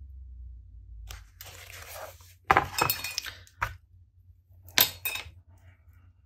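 A rustle, then a run of sharp clinks and clacks of a small white paint jar and its lid being handled and set down on the work table, with the loudest knocks about halfway through and near the end.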